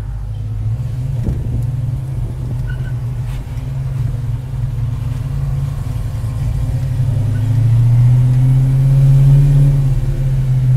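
A 1940 Ford truck's 351 V8 engine running while the truck drives slowly, heard from inside the cab. About seven seconds in, the engine note rises and grows louder as it picks up speed.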